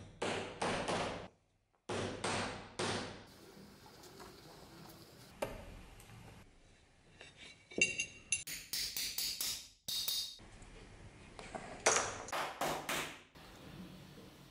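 Hammer striking a steel hand punch through a leather strap: short groups of three or four sharp metallic blows, with a run of lighter, ringing taps in the middle.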